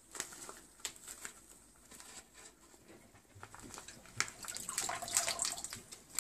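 Wet plant roots being worked by hand through the neck of a glass vase: scattered small clicks and wet crackling rustles, busier and louder in the last two seconds.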